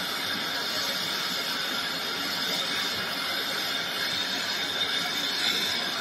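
Hand-held gas torch flame hissing steadily while it heats a copper refrigerant-tube joint for brazing.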